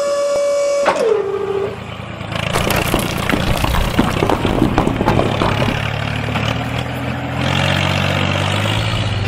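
A steady siren-like tone slides down in pitch and dies away about a second in. It is followed by a vehicle engine running under a rattling clatter, and the engine's low note steps up higher near the end.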